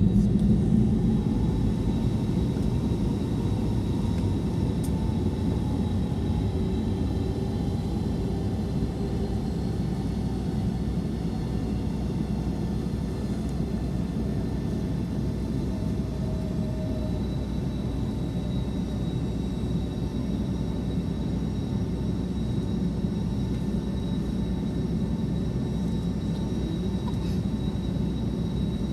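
Boeing 757-200 jet engines heard from inside the passenger cabin: a steady deep rumble with a thin high whine and a fainter tone that slowly drifts in pitch.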